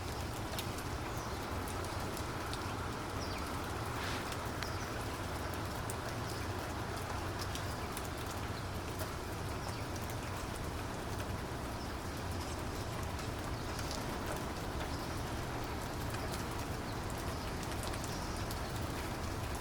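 Steady rainfall, with many individual raindrops pattering and ticking over an even hiss.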